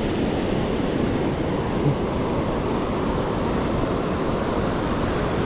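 Ocean surf washing on the beach, a steady rushing noise, with wind on the microphone.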